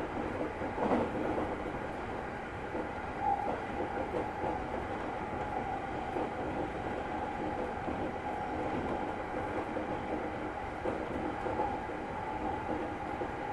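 JR East Tokaido Line local electric train running at speed between stations: a steady rumble of wheels on the rails with a steady high tone over it, and a faint click about a second in.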